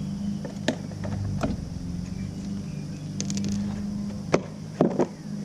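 Metal clicks and knocks as bolts are worked off a lawnmower engine's cover with a hand wrench, with a quick run of ratchet-like clicks about three seconds in, over a steady low hum.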